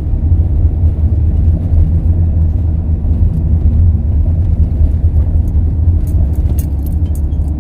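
Renault Master camper van driving up a hill, its engine and road noise a steady low rumble, with a few light clicks near the end.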